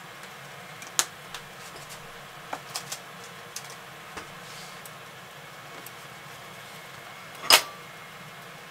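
Steady hiss of a lit gas burner with a few light clicks and taps, then one loud clack near the end as the cast-iron skillet knocks against the steel burner grate while it is lifted and tilted to spread the oil.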